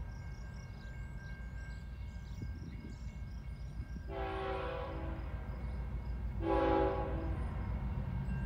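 Air horn of an approaching CN freight led by GE Evolution Series locomotives, sounding two blasts from a distance: a long one about halfway through, then a shorter one. The horn plays a chord of several tones over a steady low rumble.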